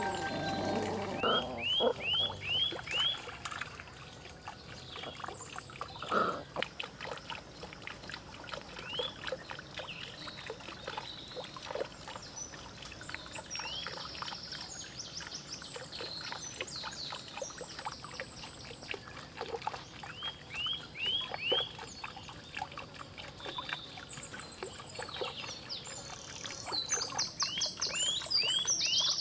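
Water trickling and splashing from a bamboo water wheel into a small fish pond, with light ticking clicks throughout. Runs of four or five quick rising chirps come a few times.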